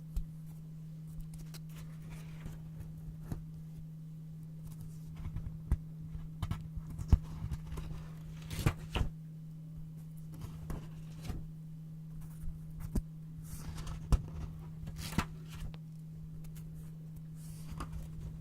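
Brown paper being handled and cut with scissors: irregular crisp snips, crinkles and taps, busiest in the middle, over a steady low hum.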